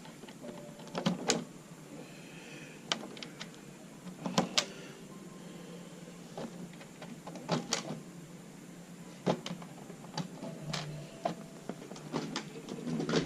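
Irregular sharp clicks and light knocks of a hard-plastic RC truck body and its parts being handled.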